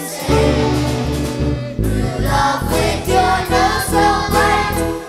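Children's choir singing with a live band of keyboard and drum kit, over a strong, steady bass line and a regular beat.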